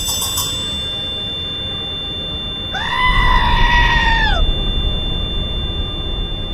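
Horror sound effect: a low rumbling drone with a thin high steady tone over it, and about three seconds in a single drawn-out, wailing scream that rises, holds for about a second and a half, then falls away.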